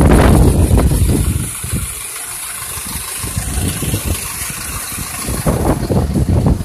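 City bus engine running at a stop, loud at first and dropping quieter after about a second and a half.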